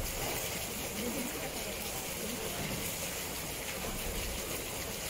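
Steady rushing water.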